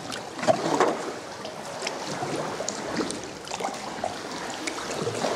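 Sea water lapping and sloshing against kayak hulls and rock walls inside a sea cave, with the splashes of paddle strokes and small irregular water ticks; the loudest splashes come about half a second to a second in.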